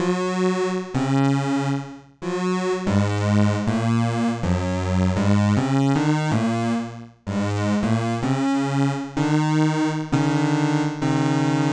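Crumar Stratus analog synthesizer playing a run of sustained notes, changing about once a second, with its oscillator glide set so that one oscillator bends upward at each new note to meet the other's pitch. Near the end, a held note pulses rapidly.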